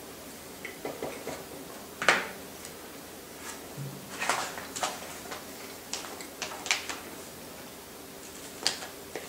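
Plastic packaging being handled: a sealed plastic jerky pouch picked up and turned over, giving short crinkles and rustles in clusters. A single sharp knock, the loudest sound, comes about two seconds in.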